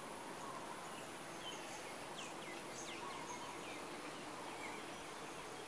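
Faint tropical outdoor ambience: a steady high insect drone, with a few quick, down-sweeping bird chirps about two to three seconds in.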